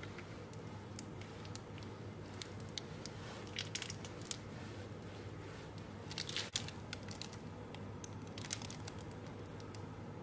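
Plastic piping bag crinkling and squelching as it is squeezed to pipe mayonnaise: a scatter of small crackles, busiest and loudest about six seconds in. A steady low hum runs underneath.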